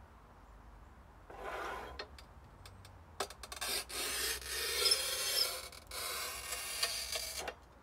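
Manual tile cutter's scoring wheel scraping along a sheet of 6 mm glass as the carriage is pushed down the rails: a gritty, scratchy hiss lasting about four seconds with a brief break partway, after a shorter scrape a second or so in. This is the score line being cut before the glass is snapped.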